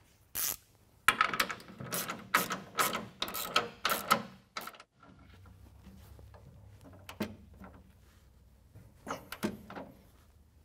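Ratcheting torque wrench clicking through a run of strokes, about three clicks a second, while 5/8-inch frame bolts are tightened toward 100 foot-pounds. A faint low hum follows, and a few more clicks come near the end.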